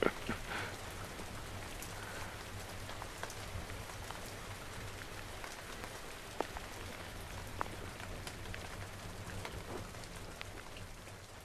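Rain falling steadily, with scattered single drops ticking sharply close by. It fades out near the end.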